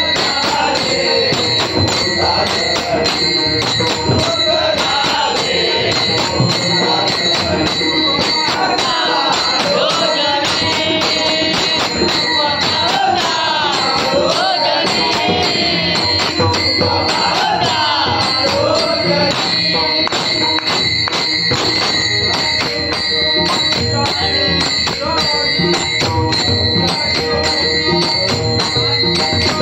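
Konkani devotional bhajan: men singing to harmonium, with a laced two-headed drum (pakhawaj) and tabla keeping time and small brass hand cymbals (taal) clashing in a fast, steady rhythm.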